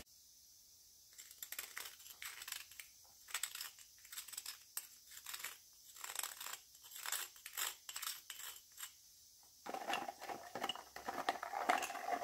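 Small clicks, clinks and rustles of a metal wrench, the removed carburetor float bowl and a clear plastic tub being handled around a generator's carburetor, with a longer scraping sound in the last two seconds or so.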